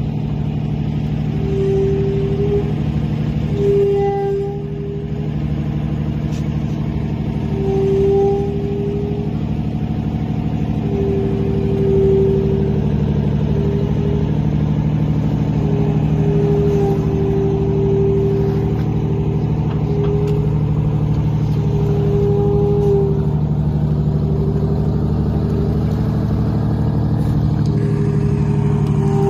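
Supercharged and turbocharged Detroit Diesel engine of a 1980 Silver Eagle bus running steadily at low speed as the bus backs a boat trailer down a launch ramp, with a higher whine that comes and goes every few seconds.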